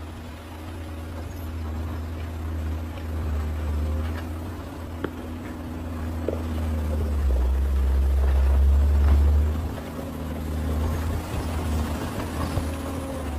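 Engine of heavy earthmoving equipment running with a steady low rumble as it grades a drainage channel. It grows louder about seven seconds in, as under load, and eases off again near the ten-second mark.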